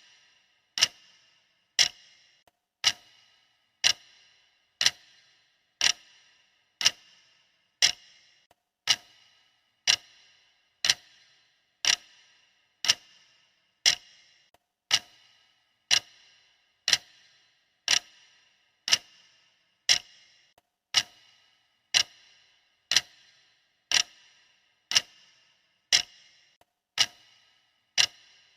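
Clock ticking steadily, one sharp tick each second, evenly spaced.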